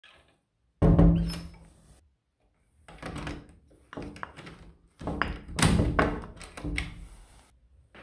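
A wooden door being unlocked and opened: clicks and knocks of the lock knob and metal lever handle, with a heavy thunk about a second in.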